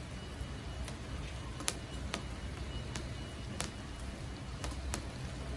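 Raindrops dripping onto the terrace and pots, heard as about eight sharp, irregular ticks over a steady low rumble of rain.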